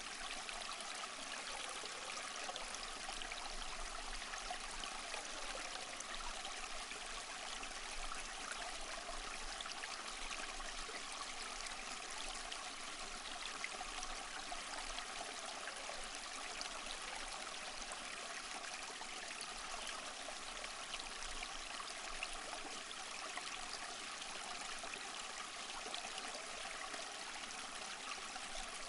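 Small stream flowing: a steady, even rush of running water that does not change.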